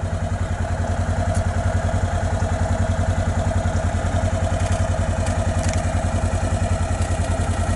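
A vehicle engine running steadily at low speed, with an even, rapid low pulse and a steady whine over it.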